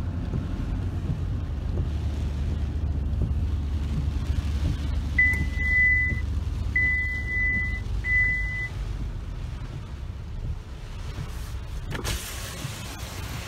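Pickup truck running as it drives, heard from inside the cab as a steady low rumble, with three high electronic beeps a little past the middle. Near the end it cuts to a hiss of rain on the truck's window.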